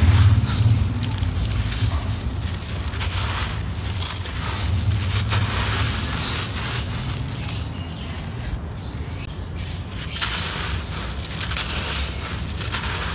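Hands crushing dry, gritty stony lumps so that they crumble, with grit and small stones pouring through the fingers: a continual crackling and grainy trickling, briefly quieter a little past the middle.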